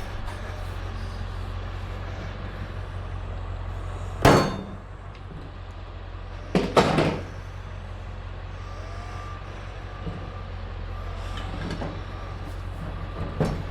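Hand clamp and wood block being worked on a motorcycle tire to break its bead off the rim: one sharp knock about four seconds in and a quick double knock a couple of seconds later, over a steady low hum.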